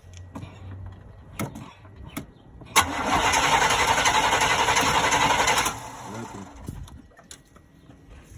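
Chevy OBS pickup engine cranking on the starter for about three seconds without catching, after a couple of sharp clicks. It is a no-start that the owners think might be the fuel injectors not shooting fuel.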